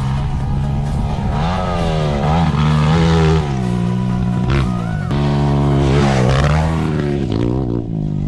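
Dirt bike engine revving, heard from a camera on the moving bike. Its pitch rises and drops several times as the rider accelerates and eases off.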